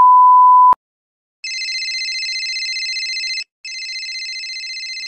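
A loud steady high-pitched beep for the first moment, then after a brief silence a mobile phone ringtone sound effect: a fast-warbling electronic ring in two bursts with a short gap between them, the second still ringing at the end.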